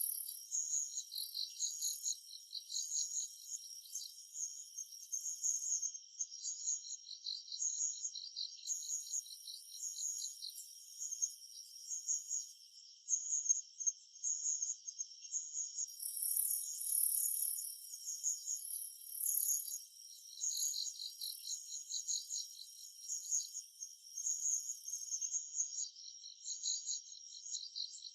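Summer-forest insect chorus: several insects chirping and trilling in steady repeating pulses at different high pitches, with a higher buzzing layer that starts and stops in stretches of several seconds.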